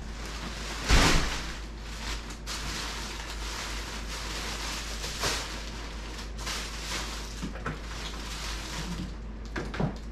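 Plastic shipping bags rustling and crinkling as they are rummaged through and items pulled out, with a louder crackle about a second in.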